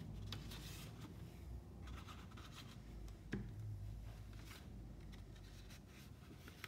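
Faint scratchy rubbing of a glue stick across folded paper, with paper being handled, and a single light click about three seconds in.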